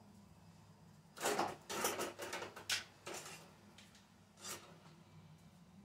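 Household items being handled and slid on a kitchen counter: a run of short scraping and rubbing sounds starting about a second in, and one more near the end.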